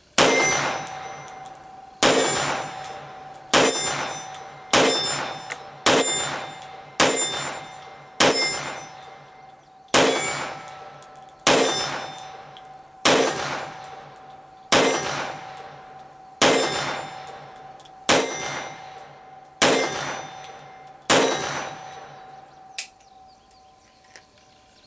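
Fifteen slow, evenly paced shots from a Rock Island Armory XTM-22 .22 Magnum semi-automatic pistol, about one every one and a half seconds, each followed by a ringing clang like a struck steel target. The pistol cycles through the whole magazine without a failure to feed.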